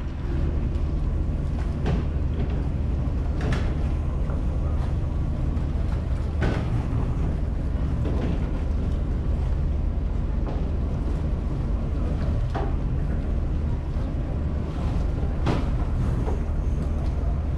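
A passenger ferry's engine gives a steady low drone under a constant rushing noise, with a few faint knocks scattered through.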